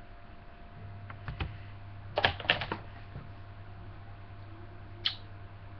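Several sharp clicks and taps close to the microphone: a few about a second in, a louder cluster about two seconds in, and one more near the end, over a steady low electrical hum.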